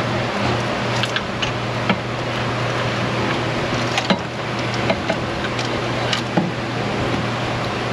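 Steady mechanical hum and hiss in the background with scattered light clicks and knocks of metal parts as an intake manifold is worked down onto the gaskets of a small-block Chevy V8.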